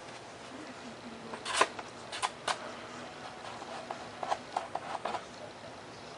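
Handling sounds of foam-board model parts being worked by hand: a few sharp clicks and scrapes, the loudest about a second and a half in and two more soon after, then lighter taps over a steady faint hiss.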